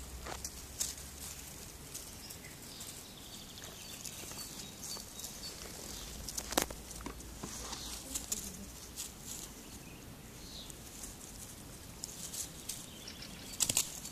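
Puppies moving about over dry leaves and grass: light rustling and pattering with scattered clicks, one sharper click about six and a half seconds in.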